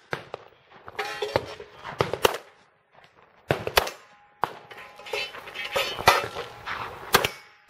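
Handgun shots fired at steel targets, with the clang of hits on the steel plates. About ten sharp reports, several in quick pairs, with a faint ring of the steel after some of them.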